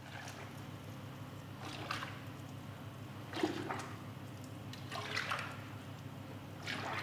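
Beer splashing and trickling into an open fermentation vat in several short bursts, about one every second and a half, over a steady low hum.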